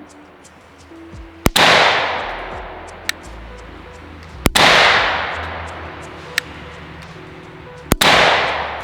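Three single rifle shots from a PSA AK-103 firing 7.62×39 mm ammunition, about three seconds apart. Each is a sharp crack followed by a long echoing decay.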